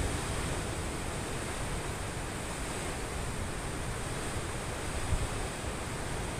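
Steady wash of sea surf below, mixed with wind rumbling on the microphone, which swells briefly about five seconds in.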